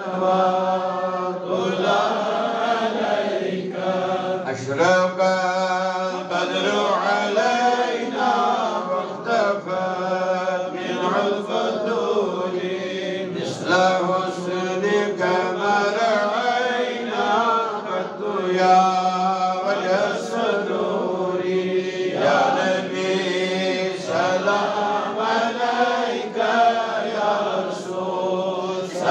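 A man's solo voice chanting a melodic Islamic devotional recitation, with long held, slowly bending notes, amplified through a headset microphone and PA.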